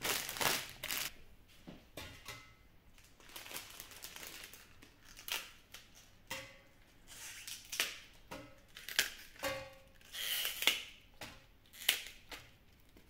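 Plastic produce bag crinkling as pak choi is handled, then crisp pak choi leaves being snapped off the stalk, in short irregular rustles and snaps.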